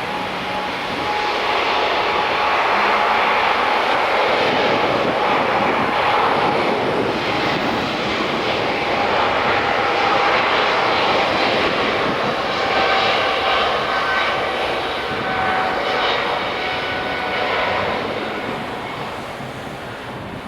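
Jet airliner taking off, its engines at take-off power: a loud, steady jet rumble and roar that builds over the first couple of seconds, holds, and fades toward the end.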